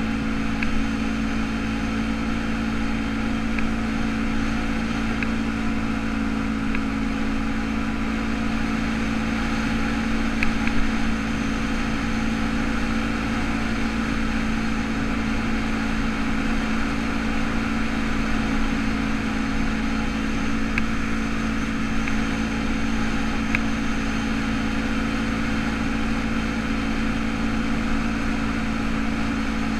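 ATV engine running at a steady cruising speed, a constant even drone, with a few light clicks scattered through it.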